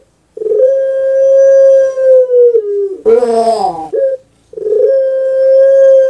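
Puter pelung dove (Streptopelia risoria) singing its long drawn-out coo: a steady held note of about two seconds that drops in pitch at its end, then a short falling burst about three seconds in, and a second long held note starting near the end.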